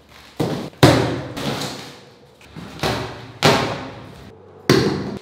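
Large cardboard shipping box being yanked open by hand: a series of about six sharp cardboard thumps and scrapes, each fading within half a second or so.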